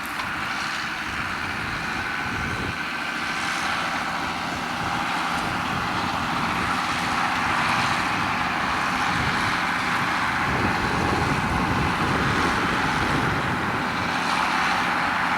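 Tractor engine running steadily in the field, growing gradually louder.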